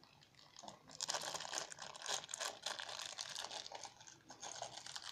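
Small plastic wrapper crinkling and crackling as it is handled and worked open by hand. A dense run of crackles starts about half a second in.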